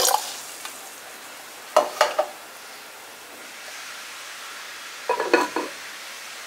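Water poured into a ceramic donabe stops just at the start, leaving a steady hiss. Two short clinks come about two seconds in. About five seconds in, a quick rattle of knocks with a ringing tone as the ceramic lid is set on the clay pot.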